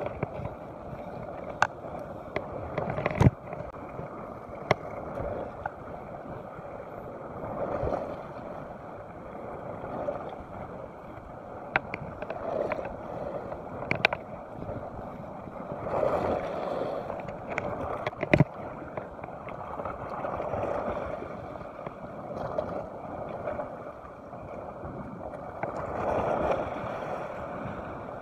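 Sea waves washing and sloshing against the rocks below, surging every few seconds, with a few sharp clicks scattered through.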